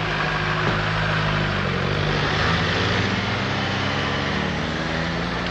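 Car engine running steadily as the car drives off.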